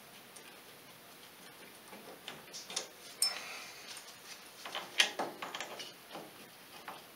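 Scattered metallic clicks and knocks as the bolt and rear hub carrier of an ATV's suspension are worked loose and handled, with the loudest knock about five seconds in.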